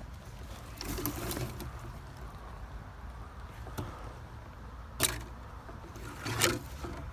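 Two sharp cracks about a second and a half apart, the loudest sounds here, typical of airsoft gun shots, over a low steady rumble.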